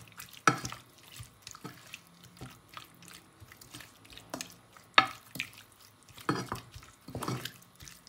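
Wooden spatula stirring diced raw chicken with garlic and ginger in a granite-coated nonstick pot: irregular scrapes and taps of the spatula against the pot, the sharpest about five seconds in.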